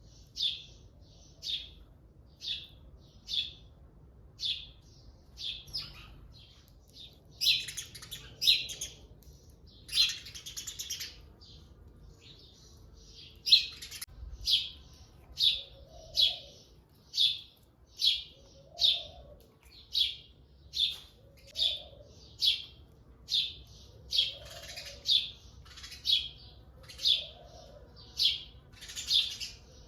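Bird chirping in short, high, repeated notes, about one a second, with a few denser bursts of twittering. From about halfway a faint lower call repeats every second or so.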